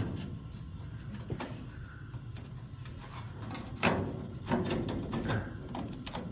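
A handful of scattered knocks and clunks of a sheet-metal repair panel being handled and pressed into place against the car body, the loudest about four seconds in, over a low steady hum.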